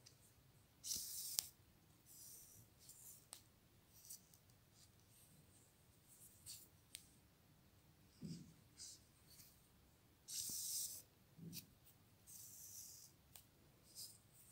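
Faint scratchy rustling of yarn as a sewing needle is pushed between the loops of yarn wrapped on a ruler and the thread is drawn through, in several short bursts with a few light clicks.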